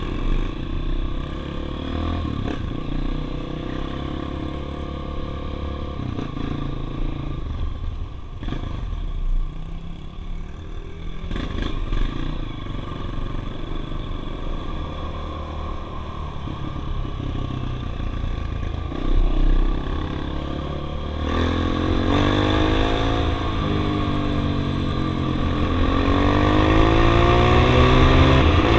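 Single-cylinder trail motorcycle engine running on the move, its note rising and falling with the throttle and gear changes. From about two-thirds of the way in it grows louder, with the revs climbing and dropping in repeated sweeps.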